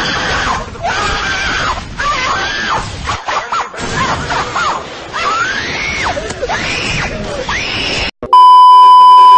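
High-pitched screaming or wailing voice, its pitch sliding up and down in long cries. It cuts off sharply just after 8 seconds, giving way to a loud, steady censor bleep tone lasting about a second.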